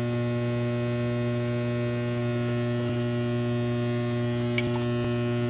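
Dental lab vibrator running with a steady low hum while wet stone is vibrated into an impression tray held on its platform. There is one faint click near the end.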